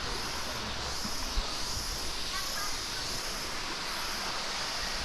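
Steady rush of water cascading down the rocks and pools of a waterfall stream, with a faint short bird call about halfway through.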